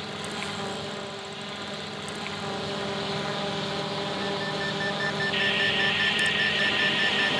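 Camera drone's propellers whining steadily and growing louder. About four seconds in, a rapid beeping starts: the drone's low-battery warning.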